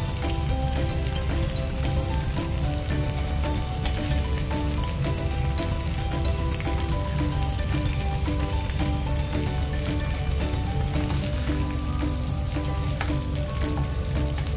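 Shell-on shrimp sizzling and crackling in garlic butter in a nonstick frying pan, stirred now and then with a spatula. A simple background melody plays quietly underneath.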